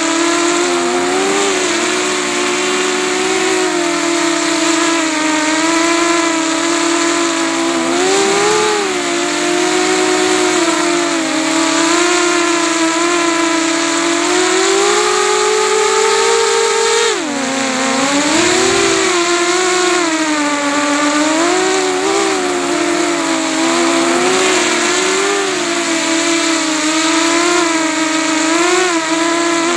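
An FPV freestyle quadcopter's brushless motors and propellers whine, heard close through the onboard camera's microphone. The pitch wavers up and down continuously with the throttle. It climbs steadily for a few seconds, then drops sharply just past halfway before picking up again.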